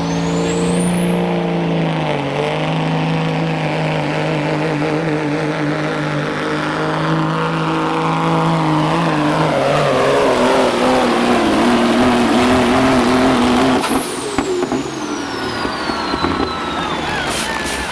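Freightliner semi truck's diesel engine running at full throttle under load as it drags a pulling sled, with a high turbo whistle that climbs at the start and holds. About fourteen seconds in the engine is let off and the whistle winds down, and a short burst of hiss follows near the end.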